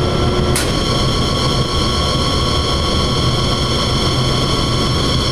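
Banbury 3D internal rubber mixer running with its hydraulic pump: a loud, steady industrial machinery drone with several steady high whining tones, the main motor under load. A short click about half a second in.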